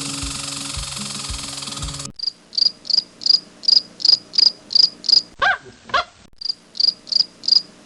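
Cricket-like insect chirping, short high chirps about three a second, starting about two seconds in after a burst of hissing noise over background music. Near the middle the chirps pause for two quick falling squeaks.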